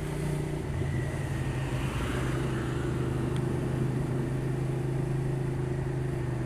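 Motorcycle engine running at a steady speed under way, one even tone over a steady rush of road and wind noise.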